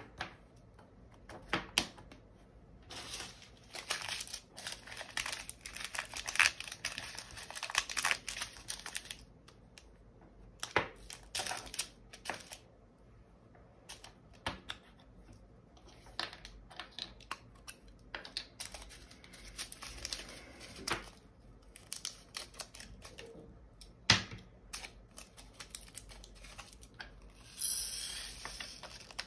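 Small plastic bags of diamond painting drills crinkling as they are handled and opened, with many scattered sharp clicks and rattles of the drills and their containers.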